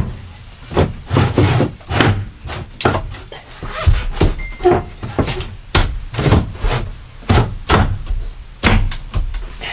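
Wooden shower-base frame being pushed and knocked into a snug fit on a van floor: an irregular run of sharp knocks and thuds, a few each second.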